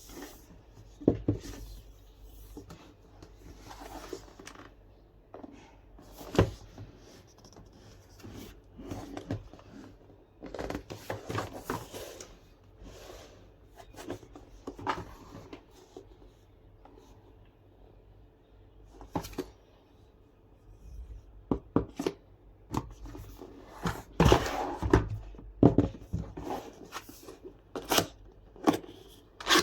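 Keyboard box and packaging being handled and opened: irregular knocks, taps and rustles of cardboard and wrapping, with a few sharp knocks.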